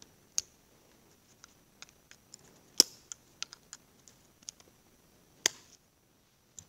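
Sharp metallic clicks and small taps of a Mopar engine lifter being taken apart by hand, with three louder clicks about half a second, three seconds and five and a half seconds in.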